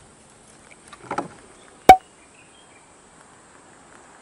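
Knocks in a small fishing boat: a few soft knocks about a second in, then one sharp, loud knock with a brief ring, over a faint background hiss.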